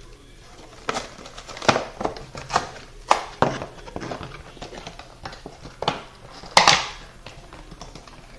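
Amiibo figure's plastic blister packaging being opened by hand: irregular crackles, clicks and crinkles of plastic and cardboard, with the loudest crackle a little past the middle.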